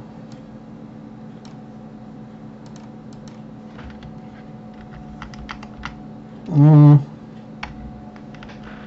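Computer keyboard keys and mouse buttons clicking: scattered taps, among them a run of repeated Ctrl+Z undo presses, over a steady low hum. About two-thirds of the way through, a short hummed voice sound is the loudest thing heard.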